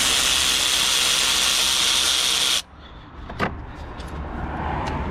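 Power tool running for about two and a half seconds and cutting off suddenly, followed by a few light clicks of metal parts being handled.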